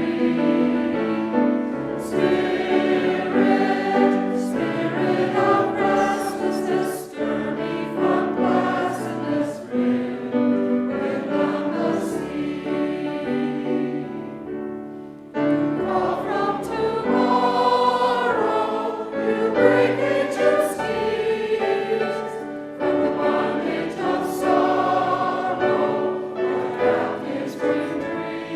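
A choir singing, with a short break between phrases about halfway through.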